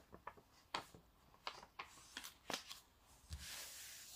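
Hands handling and smoothing a diamond-painting canvas's protective release sheet back down onto its adhesive: a few faint scattered rustles and crinkles, then a steady soft rubbing hiss from about three seconds in as the palm slides across the sheet.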